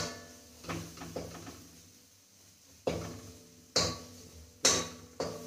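A spatula knocks and scrapes against a kadai while spice paste is stirred and cooked down (kashano). There are about five sharp clinks, each ringing briefly.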